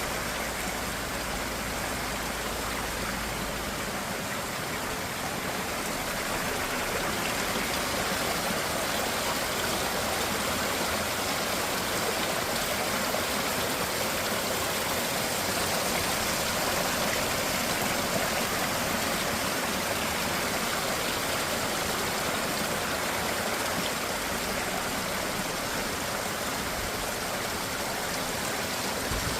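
Mountain valley stream rushing steadily over rocks. A low rumble sits under it for the first four seconds and again near the end.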